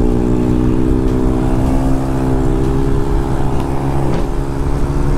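Scooter engine with an aftermarket exhaust running hard alongside, a steady engine note that climbs slightly in pitch, over wind rushing on the microphone.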